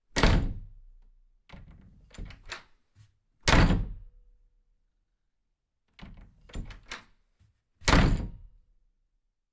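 Three heavy thuds about four seconds apart, each dying away over a second or so, with a few lighter knocks and rattles between them.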